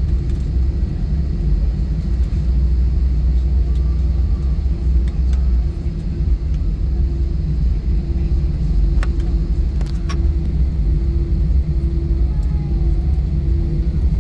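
Cabin noise of an Airbus A320 taxiing after landing: a steady low rumble from the engines and the rolling airframe, with a low hum that pulses on and off in the second half and a couple of light clicks around nine and ten seconds in.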